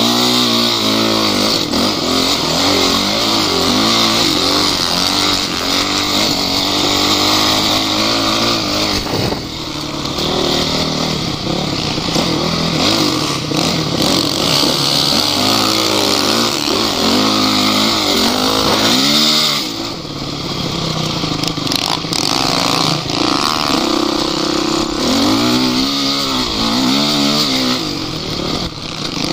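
Off-road vehicle engines revving hard, the pitch climbing and falling again and again as the throttle is worked, with short lulls about a third and two thirds of the way through.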